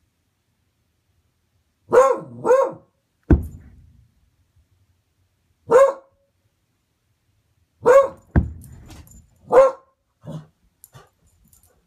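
A beagle barking in short single barks, a quick pair first and then three more spaced out, as alarm barks at someone hidden that it cannot make out. Two dull thumps come between the barks.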